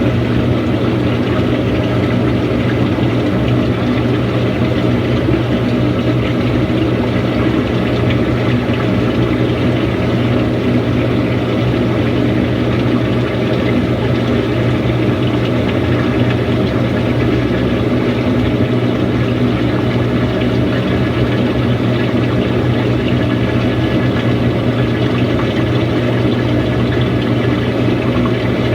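Samsung washing machine running through its wash cycle: a steady motor hum with a low drone and an even wash of water and drum noise.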